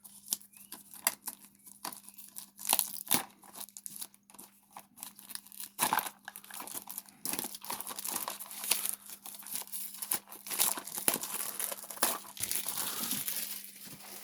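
Blind-box toy car packaging being handled and torn open: crinkling and tearing, with scattered sharp clicks and rustles.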